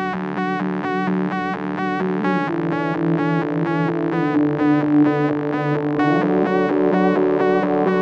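Background music: a pulsing note repeating about three times a second over held chords, slowly getting louder.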